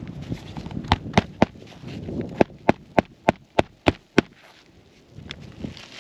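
Hammer driving roofing nails back into asphalt 3-tab shingles: three taps about a second in, then a run of seven evenly spaced strikes, about three a second.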